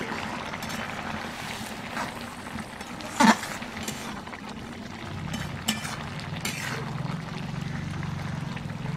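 A spatula stirring and scraping thick masoor dal with Malabar spinach in an aluminium kadai as it simmers. There is one sharp loud knock about three seconds in, and a low steady hum joins from about five seconds.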